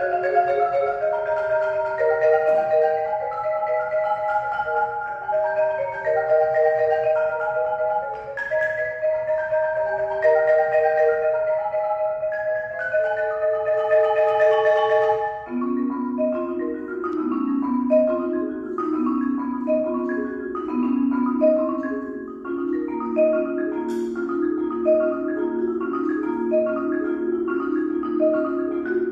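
Solo concert marimba played with mallets. It begins as a flowing melody of held, rolled notes in the middle register. About halfway through it changes to a steady low ostinato of quick repeated notes, with a higher note struck about once a second above it.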